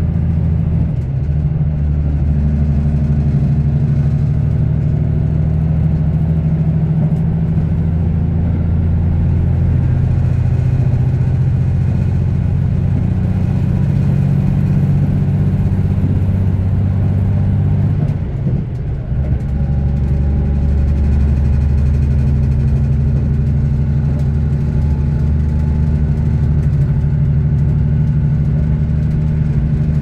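Diesel engines of a KiHa 85 diesel railcar running under power, heard inside the passenger car as a steady low drone. The engine sound drops briefly about eighteen seconds in and then comes back to the same steady note.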